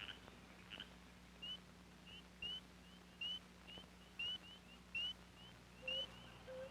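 Faint animal calls: a string of short, rising, whistle-like chirps, about two a second, some louder than others.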